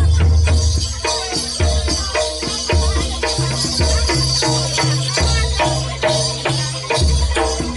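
Live jaranan dor accompaniment: a Javanese percussion ensemble of drums and gong-like pitched tones playing a steady beat, with a constant jingling rattle over it.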